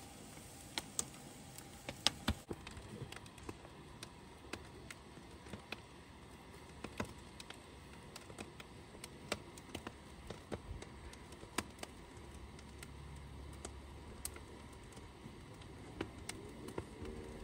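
Wood-fired evaporator boiling down birch sap: scattered sharp crackles and pops, about one or two a second, over a faint steady background.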